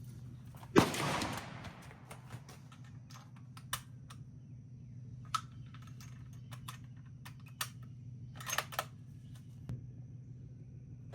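A single suppressed .22 Creedmoor rifle shot about a second in, a sharp crack with a short fading tail. It is followed by a scattered series of small clicks over a steady low hum.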